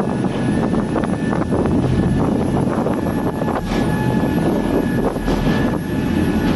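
Catamaran ferry under way at sea: a steady engine drone mixed with the noise of water rushing along the hull.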